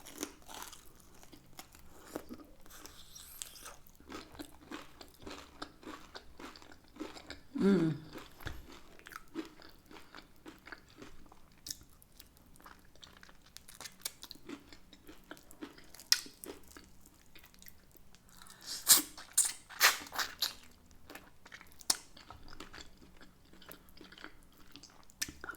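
Close-miked chewing and crunching of air-fried hot and spicy chicken wings, with small wet mouth clicks throughout. A short hum of the voice comes about eight seconds in, and a run of louder crunching bites about three quarters of the way through.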